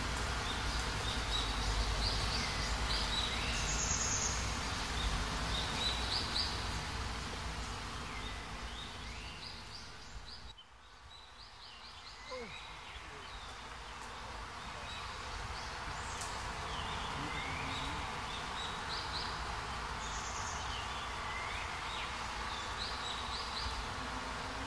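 Outdoor nature ambience: small birds chirping in short repeated phrases over a steady hiss of insects. The sound fades down about ten seconds in and builds back up.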